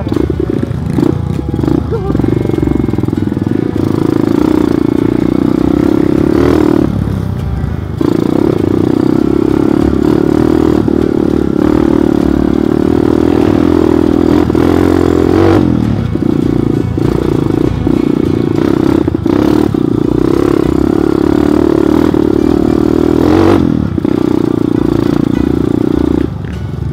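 Trail motorcycle engine running hard under load on a rocky trail, its note dipping and picking up again a few times as the throttle changes.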